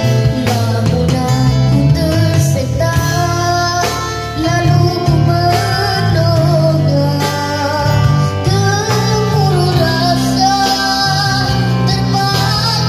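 A young boy singing a melody into a microphone over a live band of acoustic guitar, electric bass guitar and drum kit, amplified through PA speakers.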